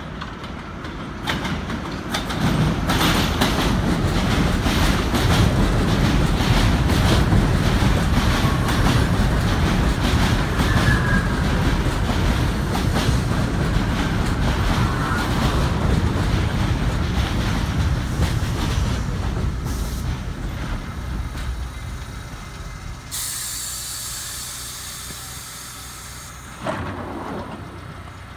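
R68 subway train pulling into the station: steel wheels clattering over rail joints, with a faint brake squeal as it slows to a stop. About 23 s in a hiss of air sounds for a few seconds, and a sharp thump comes near the end as the doors open.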